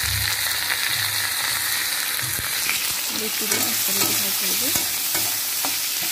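Chopped onion, tomato and chillies sizzling in hot mustard oil in a steel kadai, stirred and scraped with a metal spatula, its scattered clicks against the pan heard over the frying hiss.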